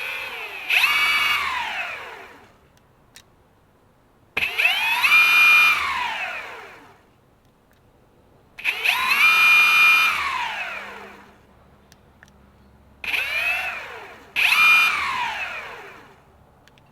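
Evolve GT Bamboo electric skateboard's electric motors spinning up and back down under the remote's throttle, five times: each a whine that climbs quickly in pitch and then slowly falls away. The drive still responds to the throttle even though the remote's display is dead.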